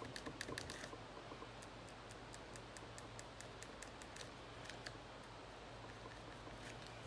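Pencil scratching on paper in quick short strokes, heard as a run of light ticks. They come fast, about five or six a second, in the first second, then fewer and further apart.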